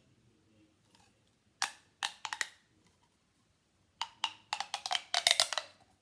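Plastic pop tube fidget toy being stretched and pushed back, its ribbed sections snapping in quick runs of pops: a few about two seconds in, then a longer rapid run from about four seconds in until shortly before the end.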